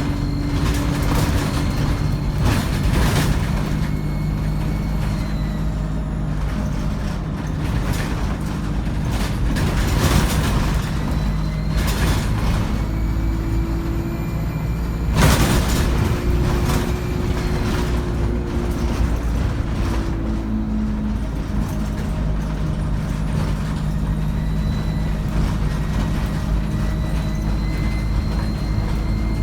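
ADL Enviro 200 bus with a 3-speed Voith automatic gearbox running under way: a steady diesel drone with a high turbo whine that rises and falls. A loud knock comes about halfway through.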